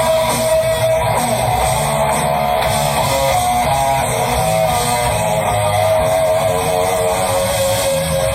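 Live rock band: an electric guitar plays a lead line of long held, bent notes with vibrato, with a few quicker stepped notes in the middle, over bass guitar and drums.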